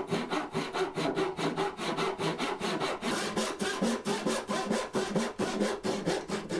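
Hand saw cutting oak by hand in quick, even back-and-forth strokes, about five a second, sawing the shoulder of a cross-lap joint.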